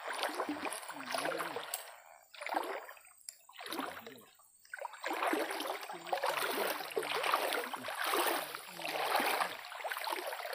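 Water splashing and sloshing in uneven swells of about a second each, with brief pauses between them.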